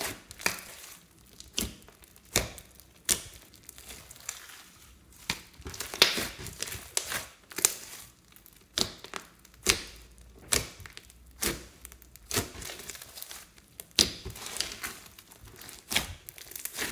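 Hands squeezing, pressing and pulling apart a large mound of thick slime studded with small foam beads, giving sharp sticky clicks and pops about once or twice a second with soft crinkling between.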